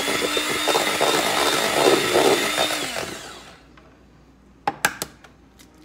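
Electric hand mixer running in a bowl of pound cake batter, beating in an egg, switched off about three seconds in. A couple of sharp knocks follow near the end.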